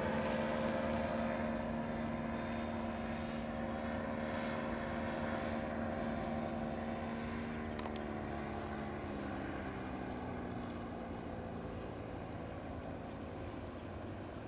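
Powered paraglider trike's engine and pusher propeller droning steadily overhead. Its pitch drops a little about eight seconds in and the sound slowly fades.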